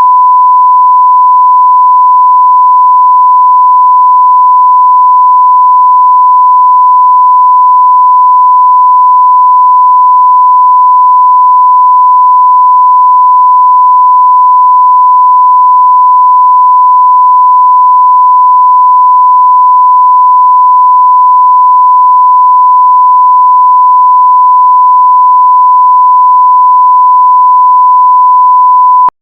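A steady, loud 1 kHz sine test tone: one continuous pure tone at a fixed pitch that cuts off suddenly at the end.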